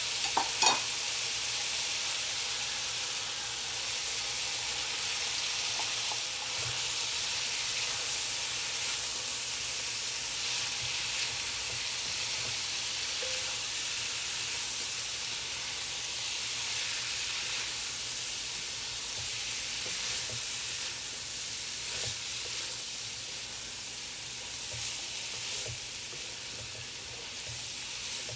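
Chicken liver and gizzard sizzling steadily in hot oil in a pan, with a sharp knock about a second in and occasional light clicks from stirring.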